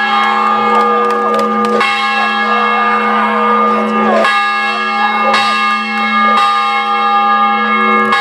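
Large hanging bell rung repeatedly. It is struck about every two seconds, and each stroke rings on into the next.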